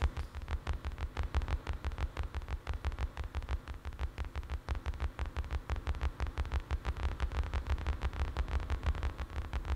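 A rapid, even electronic pulse from the keyboard setup, about eight beats a second, each beat a low thump with a click on top.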